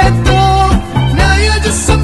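Music: a song with a steady beat and a heavy bass line.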